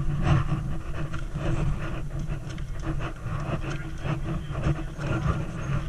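Footsteps of a group of people walking along a walkway, irregular short taps over a steady low hum.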